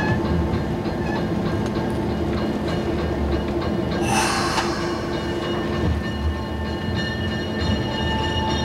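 A diesel locomotive rolls slowly along jointed track with its engine running at a steady hum. There is a short hiss about four seconds in, and a thin high squeal joins near the end.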